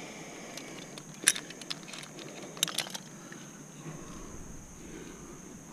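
Climbing hardware, carabiners and cams on a harness rack, clinking in sharp metallic clicks: one loud click about a second in and a quick cluster of clicks near the middle, over a steady background hiss.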